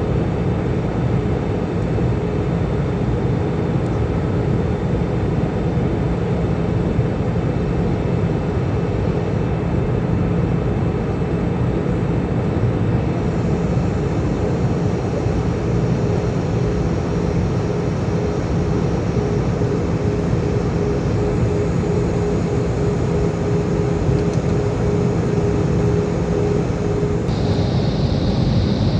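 Airbus A320-200 cabin noise in flight: the steady drone of the jet engines and air rushing past the fuselage, with a thin steady hum running through it. The higher hiss shifts slightly a few times.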